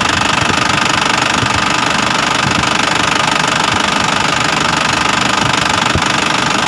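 Isuzu Elf NKR's four-cylinder diesel engine idling steadily, its diesel knock heard through the open oil filler. No blow-by smoke comes from the filler, and the engine runs smooth and normal.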